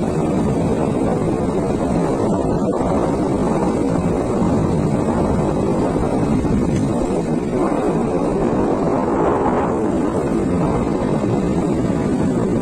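Steady wind rush on the microphone of a moving scooter, mixed with the scooter's running and road noise.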